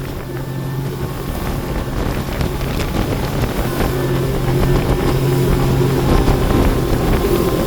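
Speedboat engine running under way with a steady hum, growing gradually louder, with wind buffeting the microphone.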